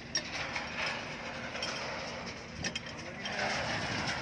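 Sharp metallic clicks and clinks of hands and tools working on metal fittings around an excavator's auto idle sensor, a few scattered clicks with a close pair about two-thirds of the way through, over a steady mechanical hum.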